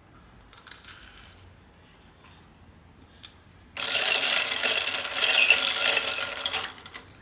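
Crunching and chewing of crisp toasted bread, close up. It starts suddenly about four seconds in, after a few faint clicks, and runs as a dense crackle for about three seconds.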